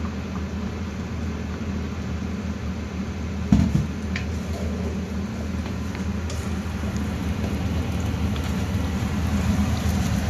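Egg and Chinese sausage being stir-fried in a wok over a gas stove: a steady low hum runs under the cooking. The spatula knocks against the wok about three and a half seconds in, with a few lighter clicks.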